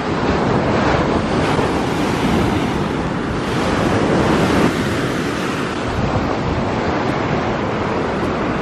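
Sea surf breaking and washing up a sandy beach in a steady rush, swelling a little about a second in and again about halfway through, with wind rumbling on the microphone.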